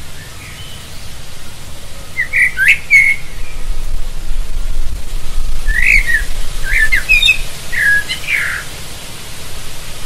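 Eurasian blackbird singing short, quick chirping and fluting phrases: one cluster two to three seconds in, then a run of several more from about six to eight and a half seconds. A steady low rumble runs underneath.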